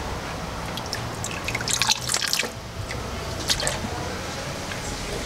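Engine oil pouring out of the 2014 Ford Mustang V6's oil pan drain hole into a drain container, dribbling and splashing, with a cluster of sharp splashes about two seconds in as the stream gets going.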